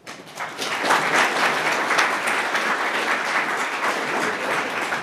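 Audience applauding in a hall, building up over the first second and tapering off near the end.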